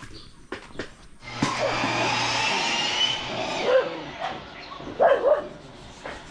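A dog barking a few times, the loudest barks a little before and about five seconds in. Earlier, a power tool runs for about two seconds after a few knocks.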